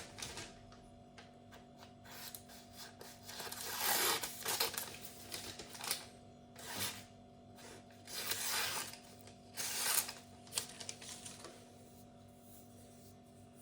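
Knife edge slicing through paper in a sharpness test: four or five short, hissy swishes over several seconds, the loudest about four seconds in, checking where a burr is left on the freshly stropped edge.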